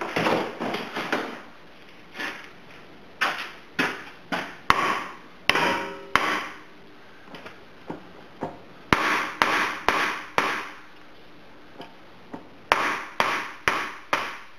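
Hammer striking the rear driveshaft at the pinion flange to knock it loose so the driveshaft can come off. Sharp knocks come in irregular runs of a few at a time, and some leave a short metallic ring.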